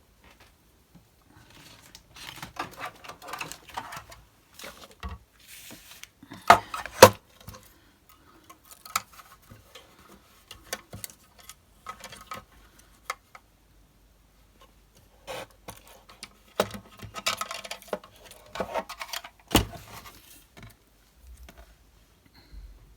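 Card stock being cut and handled on a craft desk: paper rustling with irregular clicks and knocks of tools and card, the loudest knocks about seven seconds in and again near the end.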